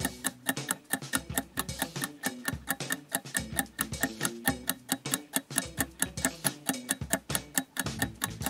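Fast, steady clock-style ticking of a quiz countdown timer, with light music playing underneath.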